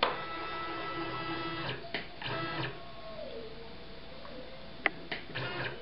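Stepper motors of an XYZ linear-actuator gantry moving an axis while it is jogged to set its home position. It starts with a steady multi-tone whine, then a single tone dips and rises in pitch as the carriage speeds and slows. A sharp click comes near five seconds in.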